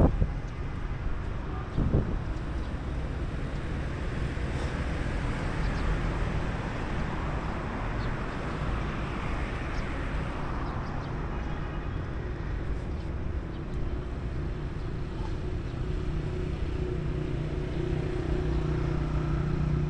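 Vehicle engines and road traffic running steadily, with a louder vehicle passing around the middle and one knock about two seconds in; a steady engine hum grows stronger near the end.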